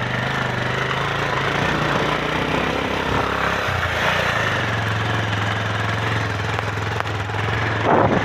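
A 220 cc motorcycle engine running steadily under load on a rough climb, its note dipping and shifting for a moment about three to four seconds in before settling again, with a brief loud rush of noise near the end.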